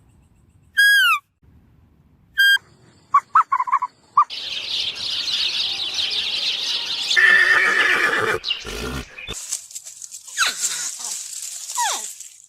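Animal calls: a few short calls falling in pitch, then a long, rough, noisy stretch with a sharp burst partway through.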